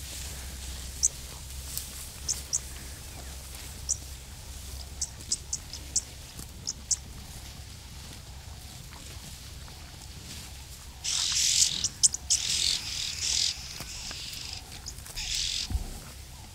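Red-billed oxpeckers calling: scattered short, high chirps, then about eleven seconds in a couple of seconds of harsh, hissing chatter, with a shorter burst near the end.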